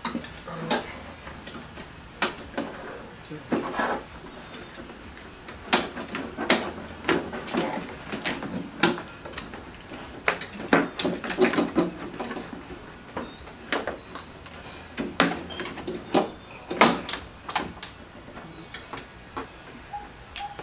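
Irregular clicks and knocks from hands working on the underside of a 2019 Dodge Charger's raised trunk lid: plastic trim pieces and clips being pushed and tapped into place.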